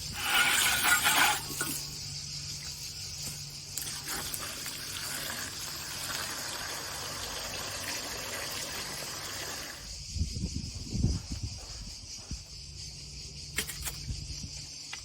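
Steady high-pitched insect chirring, typical of crickets, with a louder rustling noise in the first second and low thumps about ten seconds in.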